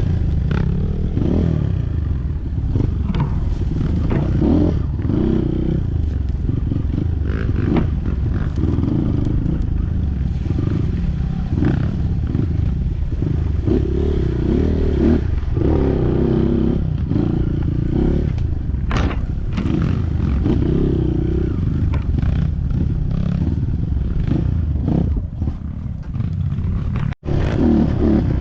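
Trail motorcycle engine running under load, its note rising and falling as it is ridden over rough off-road ground, with scattered clattering knocks. The sound drops out for an instant near the end.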